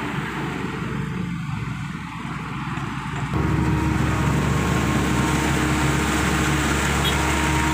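Diesel engine of a Hitachi hydraulic excavator running steadily with a low hum. A quieter engine drone grows suddenly louder a little over three seconds in and then holds level.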